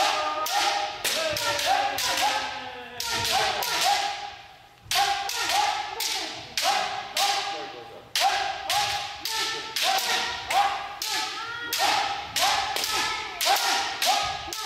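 Bamboo shinai striking kendo armour and each other, several cracks a second from many pairs sparring at once, with short, shouted calls (kiai) in between, echoing in a gymnasium. The calls drop away briefly about four seconds in and again near eight seconds.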